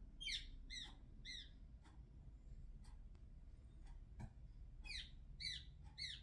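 A small bird calling: two series of three short, downward-sliding chirps about half a second apart, one series near the start and one near the end, with a few faint ticks between.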